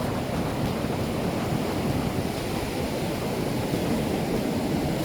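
Steady wash of ocean surf breaking on a beach, with some wind rumble on the microphone.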